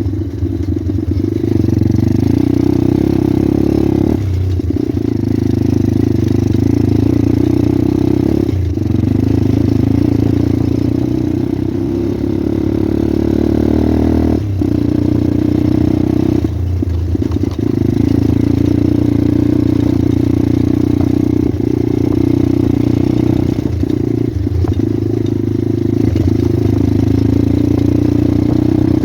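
Pit bike's small single-cylinder four-stroke engine running under way, its note dipping briefly every few seconds as the throttle is eased or the gear changed.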